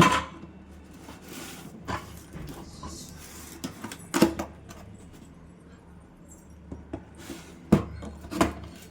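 A cardboard box and its packaging being opened and handled: scattered knocks and thumps with soft rustling between them.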